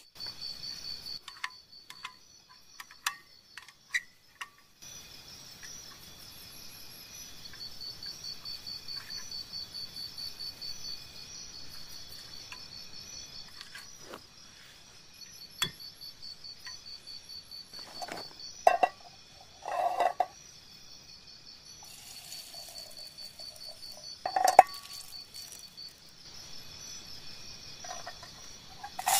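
Insects trilling in a high, rapidly pulsing tone, with a few sharp clinks and knocks of a portable gas stove and metal pot being handled, the loudest about three quarters of the way in.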